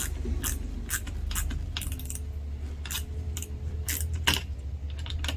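Torx wrench tightening the screw that holds an exhaust gas pressure sensor in place, with short metallic clicks about twice a second.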